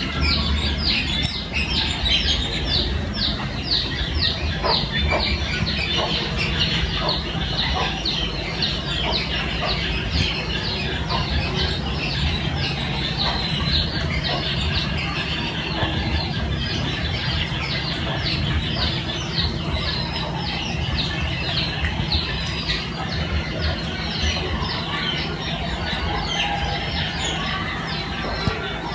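Birds chirping: many short, high, falling chirps repeating several times a second, over a low steady hum.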